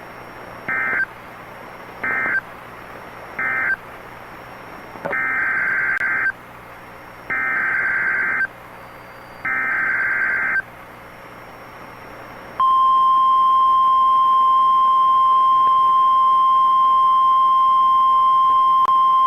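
Emergency Alert System SAME data bursts, buzzy warbling digital tones: three short bursts about a second and a half apart, then three longer bursts of about a second each. Then, around 12 to 13 seconds in, the steady single-pitch warning alarm tone begins and holds, signalling that a new alert, here the next tornado warning, is about to be read.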